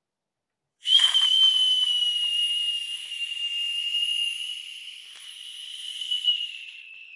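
Steam whistle on a small spirit-fired model steam engine's brass boiler, opened by hand: it starts suddenly about a second in as a steady high whistle over steam hiss. The whistle weakens and drops slightly in pitch, with a brief swell near the end.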